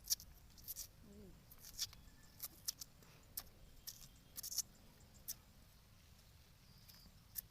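Short, sharp crunches and crackles at irregular intervals, about a dozen over the first five seconds and then thinning out: crisp fried cassava being bitten and chewed.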